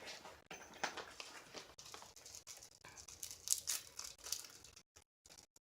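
Faint crinkling and scattered small clicks of slime supplies, such as glitter containers, being handled, with a few louder crinkles a little past halfway; the sound drops out to dead silence near the end.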